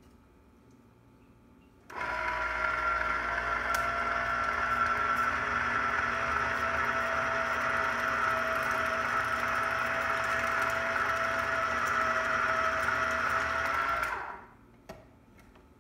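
Electric lever-arm citrus juicer's motor whirring as the reamer cone spins under a pressed citrus half. It starts suddenly about two seconds in, runs steadily for about twelve seconds, then winds down, with a small click shortly after.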